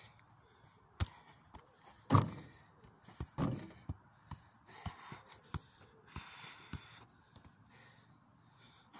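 Football being touched and tapped with the feet: a string of irregular dull thumps of the ball, the loudest about two seconds in.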